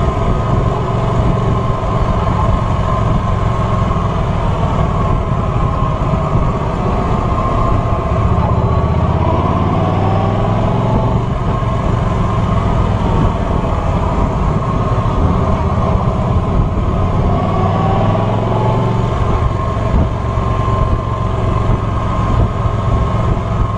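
Motorcycle engine running at road speed, heard from the rider's seat, with wind noise over it; its pitch rises and falls a few times as the bike speeds up and slows through the bends.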